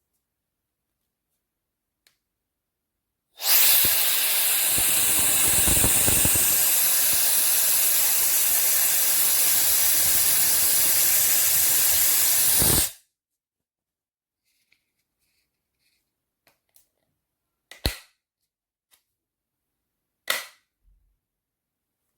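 Hair dryer switched on and blowing steadily for about nine seconds, then cut off abruptly. Two short, sharp clicks follow a few seconds later.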